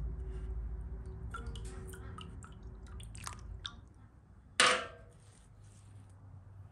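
Perforated metal skimmer scooping the thick, soft top layer off milk in an aluminium basin, with small wet drips, squelches and light clicks. About four and a half seconds in the skimmer gives one sharp knock against the bowl, the loudest sound.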